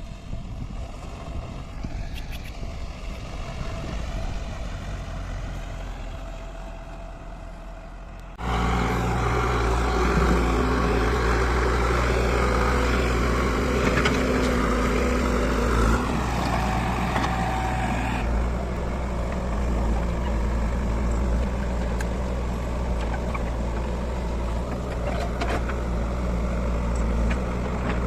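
Diesel engine of a backhoe loader running steadily at working load. It is quieter at first, then abruptly much louder about eight seconds in and stays loud, changing a little in tone about halfway through.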